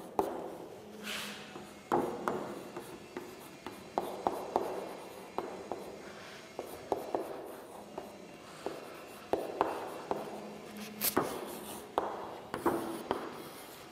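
Handwriting: a pen or chalk scratching and tapping across a writing surface in short, irregular strokes.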